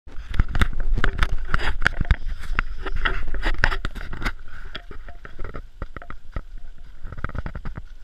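Horse hooves clopping on a leaf-covered dirt trail under a ridden horse. For the first four seconds the hoofbeats are buried in louder clattering knocks and a low rumble; after that the knocks go on more quietly and evenly.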